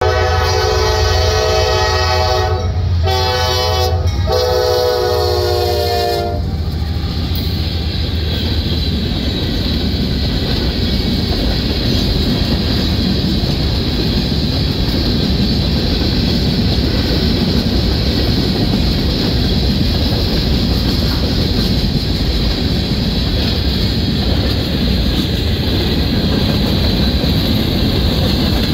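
Norfolk Southern diesel locomotive's air horn sounding three blasts, a short one between two longer ones, over the low rumble of the diesel engines. From about six seconds in, the ballast hopper cars roll past with a steady rumble and rattle of wheels on rail.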